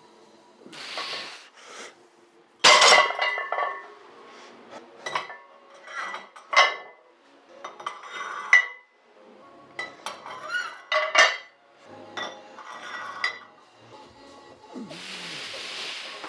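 Iron weight plates being loaded onto a barbell's sleeves: a loud ringing metal clank about three seconds in, followed by several more clanks and clinks of plate against bar and plate.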